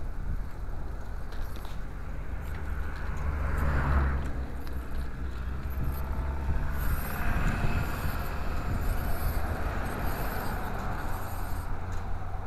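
Steady low rumble of vehicle travel on a road, swelling to a peak about four seconds in.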